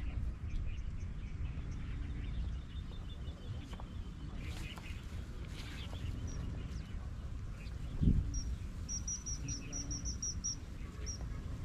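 Small songbird calling over a steady low wind rumble on the microphone: scattered high chirps, then a quick run of about ten chirps in the last few seconds. A single dull thump comes just before that run.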